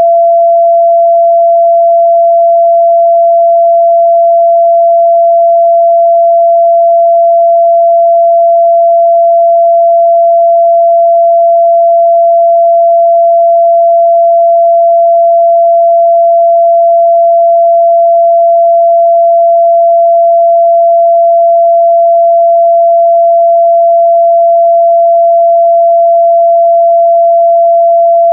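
Steady, loud 678 Hz pure sine-wave test tone, one unchanging pitch with no other sound.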